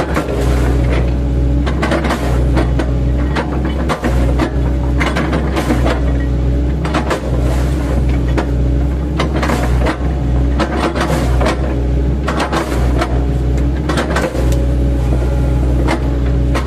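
An 8-ton mini excavator's diesel engine running steadily under load, with repeated sharp crunching knocks every second or so as its bucket, fitted with chipping blades, chops oil palm trunks.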